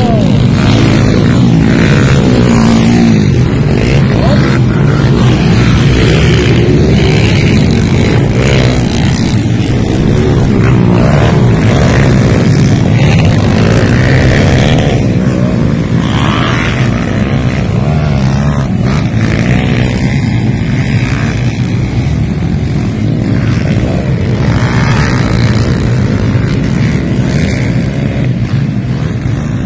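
Off-road dirt bike engines racing past, revving hard, their pitch rising and falling over and over.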